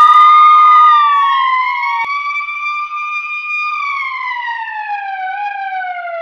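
Police siren wailing. Its long tone rises slowly, holds, then falls slowly, while a second steady siren tone overlaps it for the first two seconds and cuts off sharply.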